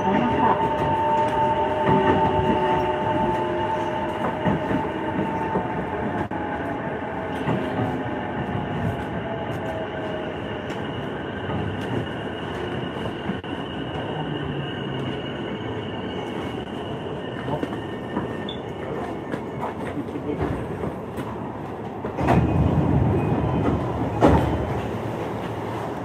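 E233-series electric train slowing down: its motor whine falls in pitch over the first ten seconds or so, over a steady rumble of train noise. A louder rush of noise comes in near the end.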